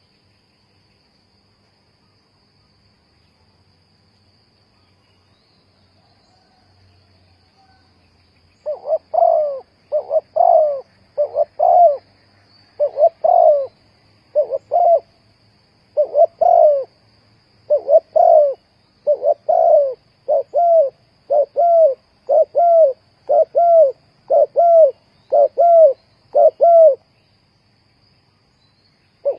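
Spotted dove cooing: after a quiet start, a long run of low coo notes begins about nine seconds in. The notes come in quick pairs and triplets and stop a couple of seconds before the end.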